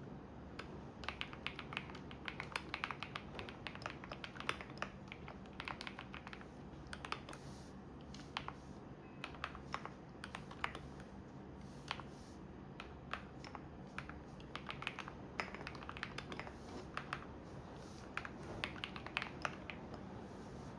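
Typing on a computer keyboard: quick runs of key clicks with short pauses between them, over the steady low hum of a washing machine running.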